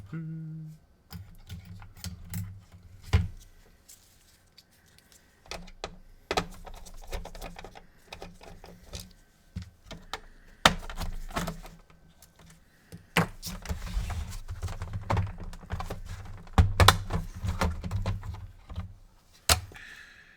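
Irregular clicks, knocks and rattles of a PS4 console's plastic housing being handled and its top cover worked off.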